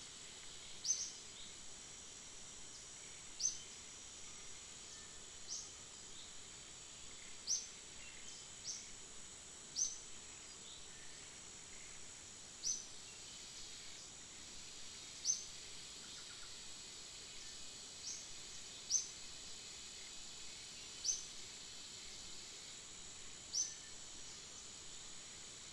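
Outdoor ambience: a steady, high insect drone with a short, high bird chirp repeated about every two seconds at uneven intervals, the chirps standing out above the drone.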